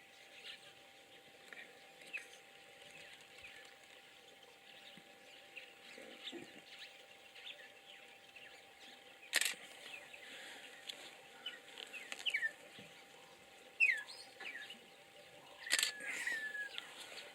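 Birds calling in scattered short chirps, with several quick sliding calls in the second half. Two sharp clicks stand out, one about halfway through and one near the end, over a faint steady hum.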